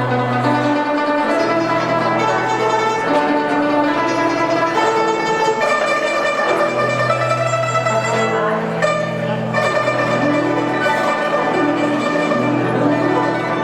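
Chinese traditional orchestra playing a slow melody: plucked strings over sustained notes and held low bass notes that change every second or two.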